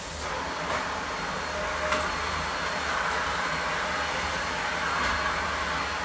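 Vacuum cleaner running with a steady rushing noise, and a brief knock about two seconds in.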